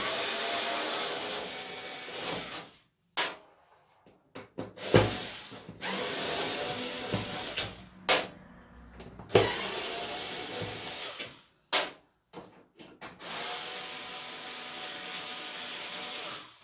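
Small cordless electric screwdriver running in several bursts of one to three seconds, driving the screws out of a TV's plastic back cover. Sharp clicks and knocks come between the runs.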